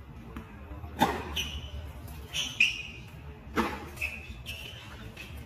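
Tennis balls struck by rackets on a hard court: several sharp pops, the loudest about two and a half seconds in, some followed by a brief high ring.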